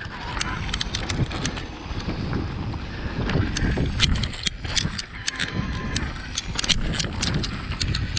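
Mountain bike riding down a rough forest singletrack: tyres rumbling over dirt, leaves and rocks with frequent sharp clicks and rattles from the bike, and wind rumble on the microphone.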